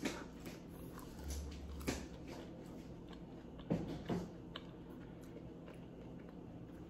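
Person chewing a mouthful of fried green plantain fries, with faint mouth clicks. Two short vocal sounds come about four seconds in.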